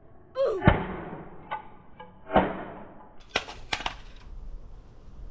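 Scattered knocks and sharp clicks of gear being handled on concrete, with a brief vocal sound about half a second in.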